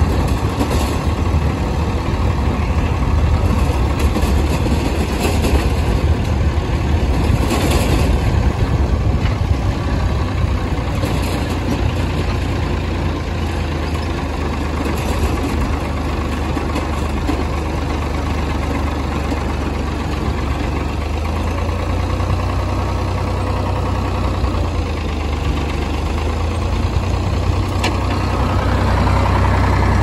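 An engine running steadily, its low note shifting slightly about two-thirds of the way through.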